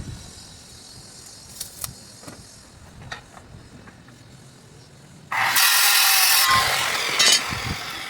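A few light knocks, then about five seconds in a power tool bites into wood for about a second, loud and hissing, and trails off over the next second or so.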